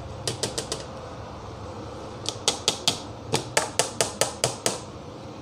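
Green plastic measuring cup tapped against the rim of a steel mixing bowl to knock the last of the gram flour out: four quick taps, then a pause, then a run of about ten more.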